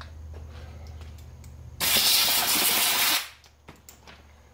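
A steady hiss, like a spray or a blast of air, lasting about a second and a half from just under two seconds in, over a low steady hum that fades soon after. A few faint clicks follow near the end.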